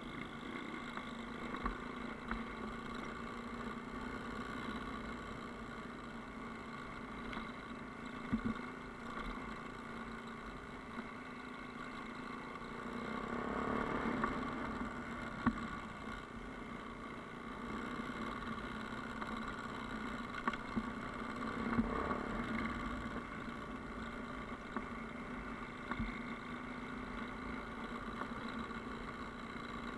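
Yamaha Ténéré adventure motorcycle's engine running steadily while riding a rough dirt track. It picks up a little twice, about halfway through and again later, with scattered short knocks from the bumpy ground.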